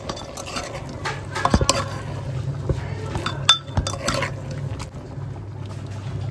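Metal ladle stirring vegetables in a metal cooking pot, scraping and knocking against its sides and bottom in irregular clinks, over a steady low hum.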